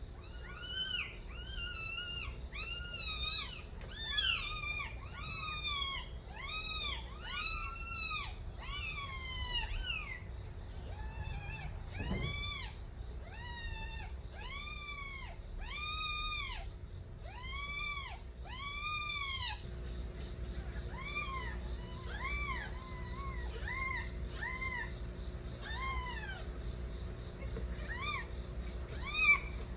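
Young kittens meowing loudly, one high, arched cry after another, several at once in the first part. The longest and loudest cries come in a series in the middle, then softer, shorter mews.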